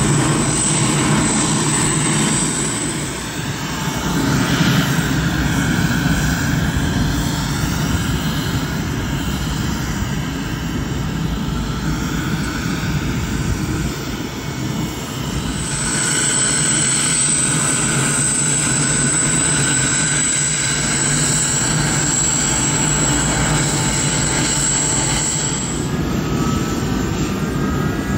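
Boeing 747-400ERF freighter's turbines running on the ground: a loud, steady whine over a low rumble. A thin high tone drops away a few seconds in, returns about halfway through, and stops near the end.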